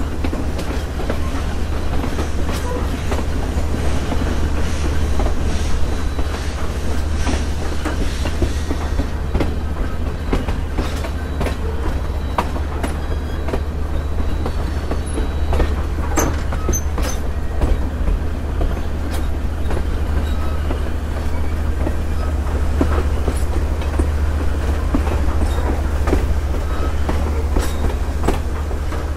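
Passenger train running along the track, heard from an open vestibule between cars: a steady low rumble with irregular clicking and clatter from the wheels on the rails.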